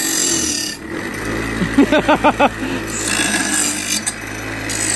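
Bench grinder running with a steady hum while a hydrofoil tail wing's edge is pressed to the wheel, giving a high grinding noise at the start and again after about three seconds. A voice breaks in briefly in the middle.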